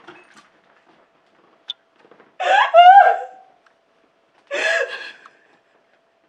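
A woman sobbing hard: two loud wailing sobs, one about two and a half seconds in and a shorter one about four and a half seconds in, with quiet gasping gaps between.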